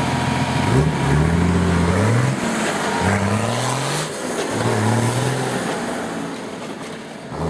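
Off-road 4x4's engine revving hard several times, each rev rising in pitch, then easing off and fading near the end.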